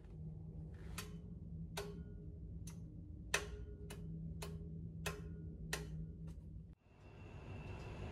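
Footsteps on a hard hallway floor: about ten sharp clicks, roughly one every three-quarters of a second, over a low hum. About seven seconds in, the sound cuts to steady street noise with a thin high tone.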